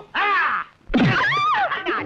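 Two loud vocal cries without words: a short one at the start, then after a brief gap a longer cry whose pitch rises and wavers, as someone shouts out while a wooden stick is swung in a beating.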